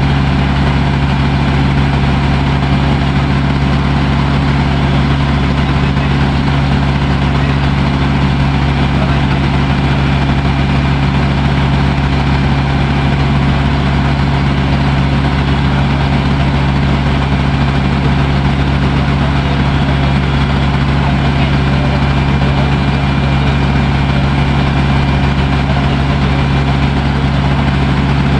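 Water taxi's motor running steadily, heard from on board the boat: a constant low drone that does not change.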